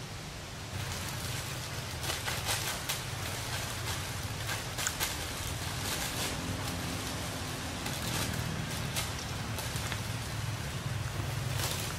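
Outdoor forest ambience: dry leaves and twigs rustling and crackling in irregular bursts over a steady low rumble.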